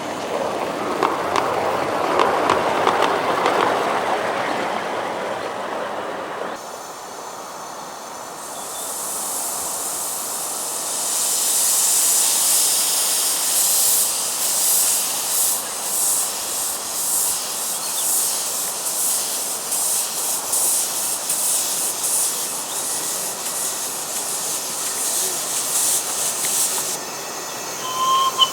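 A 7¼-inch gauge miniature train rolls along the track. After an abrupt change, a loud steady hiss with rapid pulsing follows, typical of a miniature live-steam locomotive venting steam. A brief tone comes just before the end.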